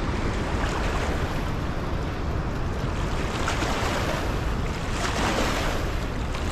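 Turbulent floodwater churning and rushing below a dam spillway, a steady even wash of water noise, with wind buffeting the microphone.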